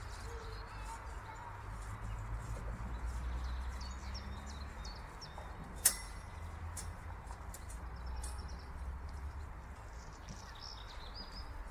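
Outdoor ambience: birds chirping faintly over a steady low rumble, with a single sharp click about six seconds in.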